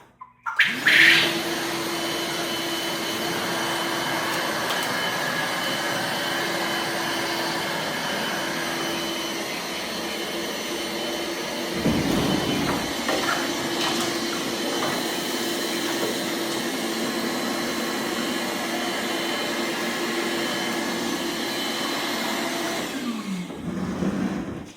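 Vacuum cleaner switched on, spinning up and then running steadily, with a brief change in its sound about halfway through; it is switched off and winds down near the end.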